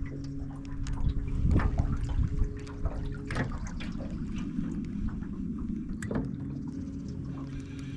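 Water trickling and sloshing over a steady low hum, with a few sharp clicks.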